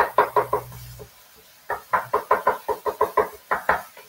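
A kitchen utensil chopping with rapid, even knocks, about six a second: a short run at the start, then a longer run from about two seconds in to near the end.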